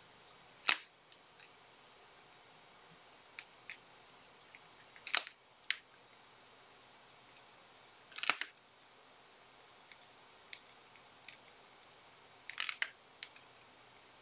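Pencil drawing on paper: a handful of short scratchy strokes spread through, the strongest about one, five and eight seconds in and a cluster near the end, with fainter ticks of the pencil between them.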